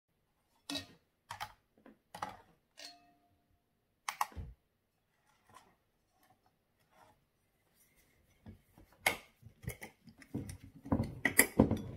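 Light clicks and knocks of a glass bowl being handled and set onto a kitchen scale on a wooden table: a few spaced clicks, one with a short ring, then a quicker run of knocks and taps near the end.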